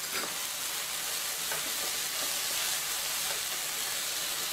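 Chopped onion, tomato, carrots and corn sizzling steadily in hot oil in a nonstick pan as they are stirred with a spatula, with a few soft scrapes. This is the aderezo, the sautéed base, frying.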